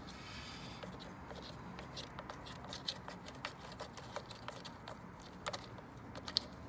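Faint, scattered small clicks and scrapes of a plastic motorcycle relay being handled and pushed back onto its mount, with one sharper click near the end.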